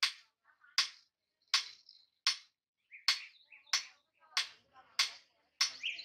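Hand hammer striking a red-hot steel chopper blade on an anvil in a steady rhythm, about eight sharp blows, one every three-quarters of a second or so, as the blade is forged to shape.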